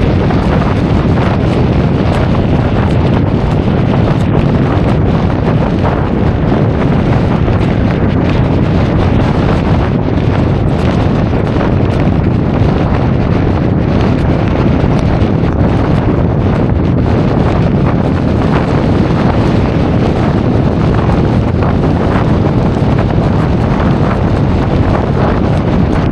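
Loud, steady wind rushing over an action camera's microphone while riding a Honda Forza 350 scooter, a constant low rumble that hides any engine sound.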